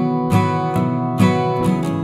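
Background music: strummed acoustic guitar chords at a steady pace.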